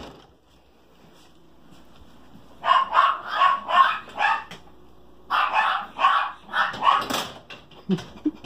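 Great Pyrenees puppy barking in two runs of short, quick barks, the first starting a few seconds in and the second a couple of seconds later.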